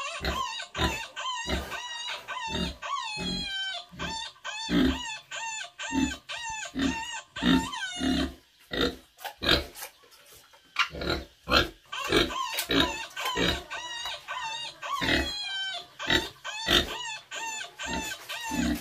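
Pig grunting and oinking in a rapid series of short calls, about two a second, with high, wavering chirp-like calls mixed in.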